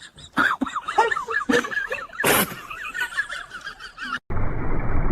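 Baby monkey squeaking and chattering in quick, high, bending calls, with a few sharp bursts among them. A little over four seconds in it cuts off and a steady low rumbling noise takes over.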